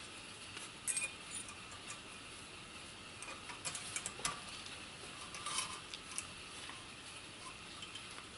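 Small metal brake hardware being handled and pressed into place: a scattering of light metallic clicks and clinks over a faint steady hiss.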